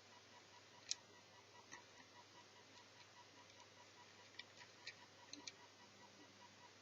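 Near silence with a faint steady ticking and a few sharp small clicks, once about a second in and several between four and five and a half seconds in, typical of small parts and tools being handled while a netbook is taken apart.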